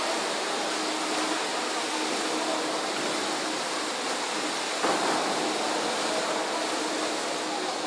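Steady, even rush of an indoor swimming pool hall: water splashing and churning under the hall's reverberant noise, with a faint steady hum. The rush grows suddenly louder about five seconds in.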